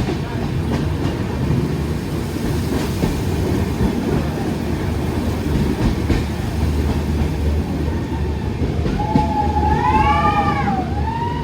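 Passenger train running along the track, heard from on board: a steady low rumble with a few faint wheel clicks. Near the end come a few high calls that rise and fall.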